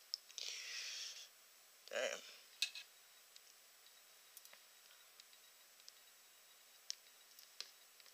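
Small handling noises from metal feeding tweezers and a plastic tub: a short hiss, a dull knock about two seconds in, then a sharp click, the loudest sound, and a few faint ticks near the end.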